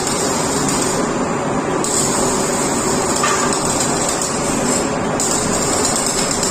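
Steady mechanical noise of industrial machinery, with a high hiss that switches on and off every second or two.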